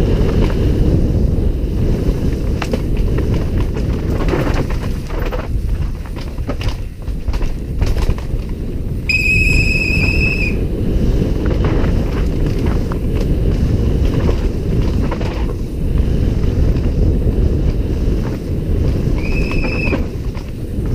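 Downhill mountain bike ridden fast over a rough dirt trail, heard from an on-board camera: a constant loud rumble of wind buffeting the microphone and tyres on dirt, with frequent knocks and rattles of the bike over bumps. A shrill tone sounds twice, for about a second and a half about nine seconds in and briefly near the end.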